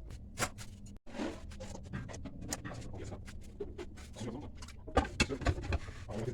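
Scattered clicks, taps and knocks of small parts and tools being handled during the repair of an electric cooking pot, over a steady low hum; a cluster of louder knocks comes about five seconds in.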